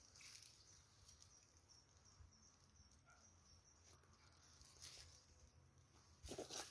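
Near silence: faint forest ambience with a thin, steady high-pitched hum, like distant insects, and a few soft rustles, the most noticeable near the end.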